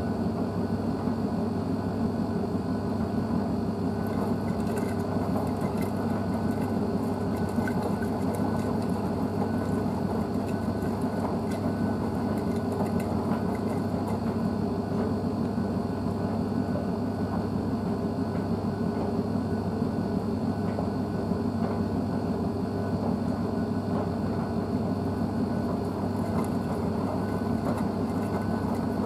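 Blomberg WNF9448 AE20 front-loading washing machine tumbling a wet load during the cool-down stage of its Synthetics programme: a steady motor hum with the drum turning and the laundry churning.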